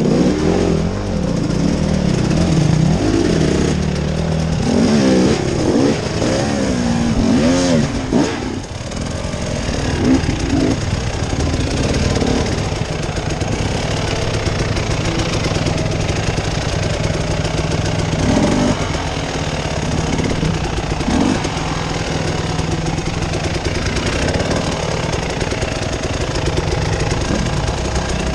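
Off-road motorcycle engine revving up and down over the first several seconds, then running at a steadier throttle with a few short blips.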